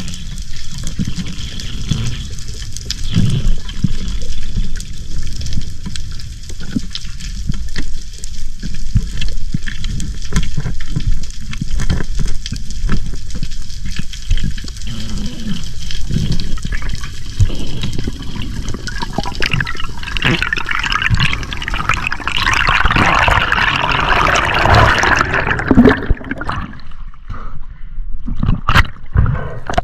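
Water sloshing and rushing, with a steady low rumble. A louder stretch of fizzing, bubbling hiss runs from about twenty seconds in to about twenty-six.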